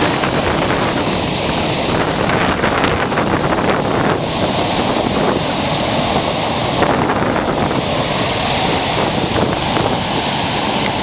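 Ocean surf breaking on a beach: a continuous loud rush of waves, with wind buffeting the microphone.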